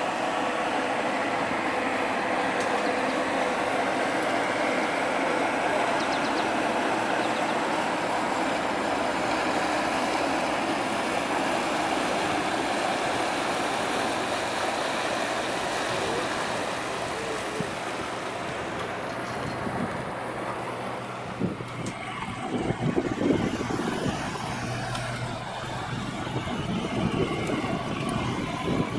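Marine diesel engines of a large motor yacht running steadily as it passes close by at low speed. About twenty seconds in, the sound changes to the uneven, louder engine of a smaller workboat coming past.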